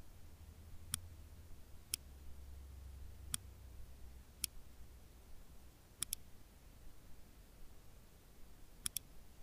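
Computer mouse clicking, single clicks about a second apart with two quick double-clicks, over a faint low hum.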